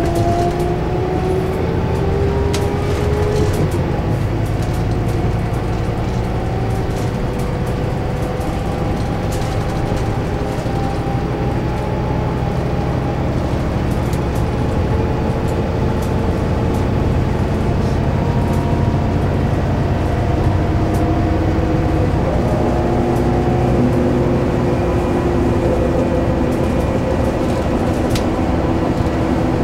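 Scania K320UB bus driving, heard from inside the cabin: a steady diesel drone under the whine of the ZF Ecomat automatic gearbox. The whine rises slowly in pitch over the first few seconds and changes pitch about twenty-two seconds in.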